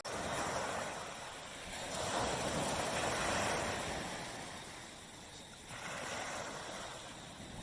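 Surf on a tropical beach: waves breaking and washing up the shore, a hissing wash that swells and ebbs every two to three seconds.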